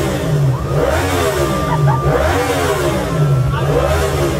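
Sportbike engine revved over and over, its pitch rising and falling about once a second.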